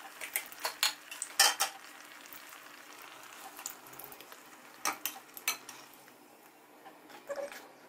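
Hot oil sizzling gently in an aluminium kadai as breaded rounds deep-fry, with a metal spatula and tongs clinking and scraping against the pan as the rounds are lifted out. The sharp clinks come in clusters: several in the first second and a half, a few around five seconds in, and more near the end.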